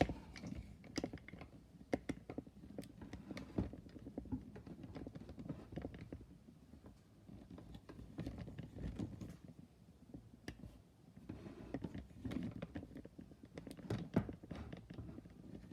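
Hand tools being handled and set up on a bench: scattered light clicks and knocks of metal parts, over a low shuffling of movement.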